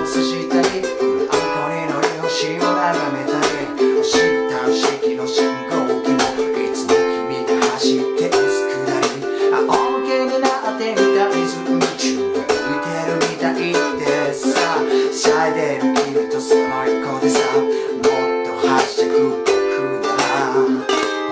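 Small thin-bodied G-Labo ukulele strummed in a busy, funky 16-beat rhythm, chords ringing between quick strokes, with no singing.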